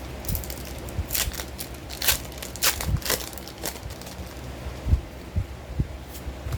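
Foil wrapper of a Pokémon trading-card booster pack crinkling as it is handled and torn open: a run of sharp crackles, with a few dull handling bumps.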